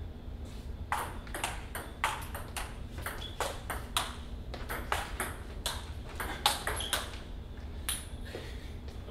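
Table-tennis rally: a celluloid ping-pong ball clicking off paddles and the table in a quick, even rhythm, about three clicks a second. The clicks start about a second in and stop near the end.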